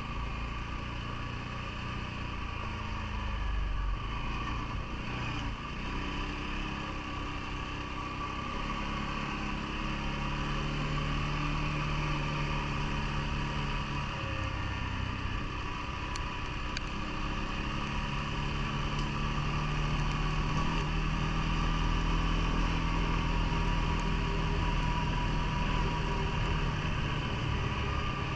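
CFMoto ATV engine running steadily, its note firming up and getting a little louder about a third of the way in.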